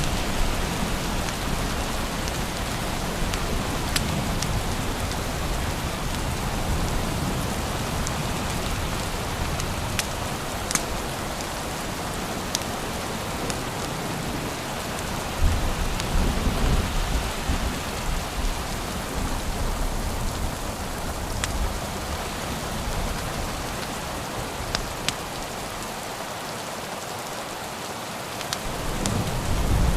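Steady rain falling, with scattered sharp pops and crackles from a log fire. Low rumbles swell up about halfway through and again near the end.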